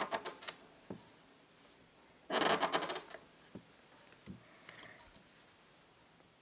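Brush-tip marker scratching across a sheet of paper as a letter is written: a few quick scratches at the start, one longer stroke of nearly a second a little past two seconds in, then a few faint ticks.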